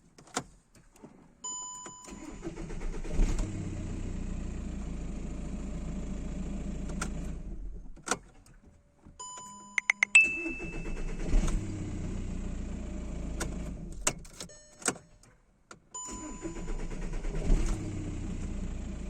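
Volkswagen Jetta 1.9 TDI diesel engine started three times in a row. Each key turn brings short dashboard chime tones and clicks, then the engine runs for a few seconds before it cuts off. This shows the hard-start problem that the owner traces to a faulty camshaft position sensor (code P0341).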